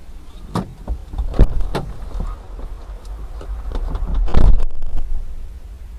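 Steady low rumble of a vehicle in motion heard from inside the cab, with a few sharp knocks in the first couple of seconds and a louder burst of noise about four and a half seconds in.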